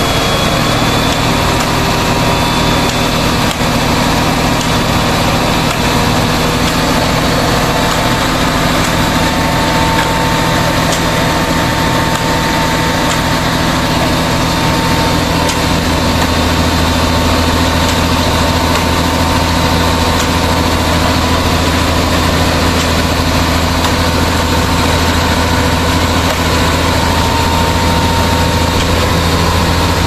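Concrete mixer truck's diesel engine running steadily at a constant speed, turning the drum while it discharges concrete down the chute.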